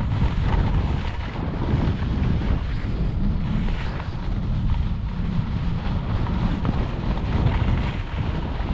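Wind rushing over the microphone of a skier's body-worn camera during a downhill run, a steady low rumble with a fainter hiss above it.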